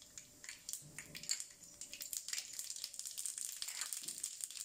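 Mustard seeds crackling and popping in hot sesame oil in a wok: an irregular patter of small sharp pops, growing a little denser and louder in the second half, as the seeds are tempered.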